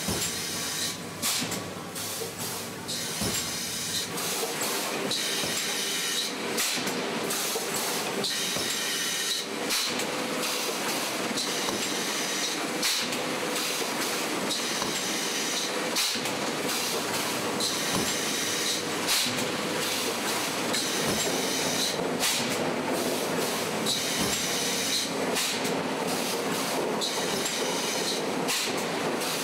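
Industrial machine running: a steady mechanical clatter with sharp clicks and bursts of hiss that come and go every second or two.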